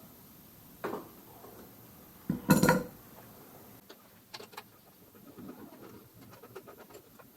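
A metal tool clanks against metal with a short ring about two and a half seconds in, followed by scattered light clicks and taps of tools being handled on a moped's front fork.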